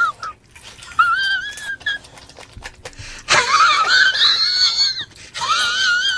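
High-pitched, wavering squeal-like cries that wobble up and down in pitch, in several stretches. The loudest comes from about three seconds in and lasts nearly two seconds, with a breathy hiss.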